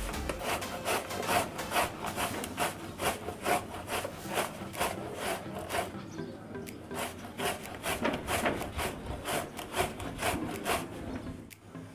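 Peeled bottle gourd being grated on a box grater's metal plate: rhythmic rasping strokes, about three a second, stopping shortly before the end.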